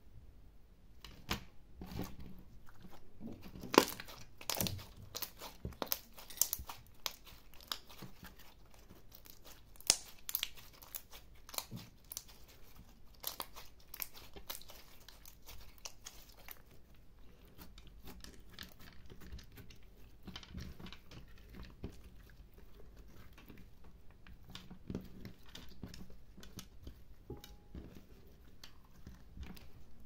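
Clear glitter slime with small beads and charms mixed in, being stretched, squeezed and folded by hand, crackling and popping wetly. Sharp pops come thick and loud in the first half, then give way to softer, steadier crackling.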